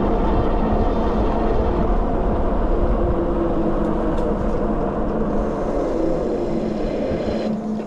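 Sondors MadMods electric bike riding at speed: steady rush of wind and tyre noise with a faint even motor whine, easing off slightly near the end.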